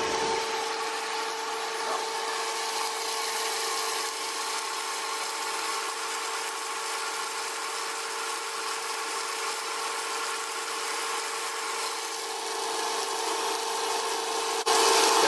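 3D-printed Pelton turbine running on hose water, spinning freely with no load on its DC motor generator: a steady whine from the spinning wheel and motor over the even hiss of the water jet spraying inside the housing.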